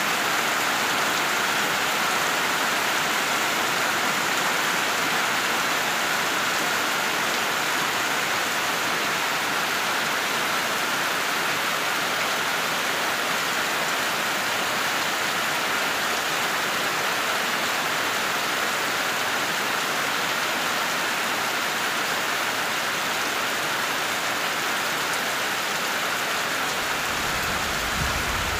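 Heavy tropical rain pouring down steadily, an even hiss of rain on leaves and ground. Near the end a low rumble of thunder begins to build.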